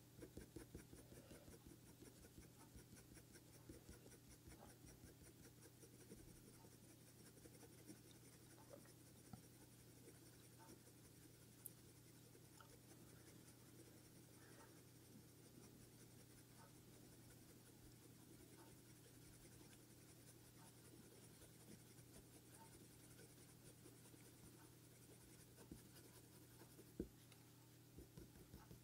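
Faint scratching of a Faber-Castell Polychromos colour pencil (walnut brown) laying down many short strokes on smooth hot-press paper.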